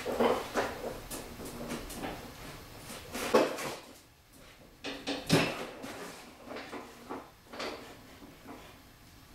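Irregular clunks and knocks of metal tools and drivetrain parts handled under a car, four louder ones about two seconds apart with smaller taps between.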